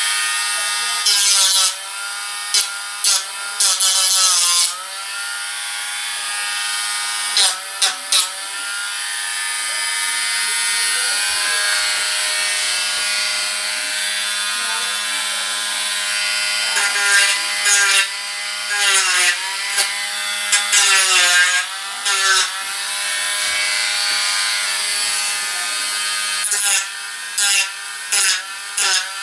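Dremel Stylus cordless rotary tool with a sanding wheel running continuously and sanding the model ship's cannon side walls. Its whine sags in pitch each time the wheel is pressed in, with short, louder bursts of scratching as it bites.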